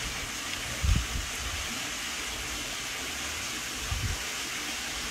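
Steady background hiss, with two brief soft low thumps, one about a second in and one about four seconds in.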